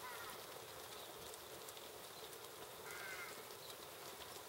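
Steady light rain falling on trees, with many fine drip ticks. A bird calls briefly right at the start and again about three seconds in.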